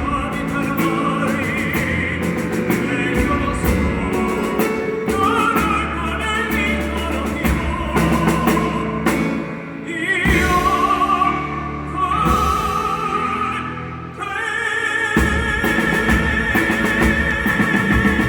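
Music with a wavering high melody line over drums and bass, ending on a long held high note.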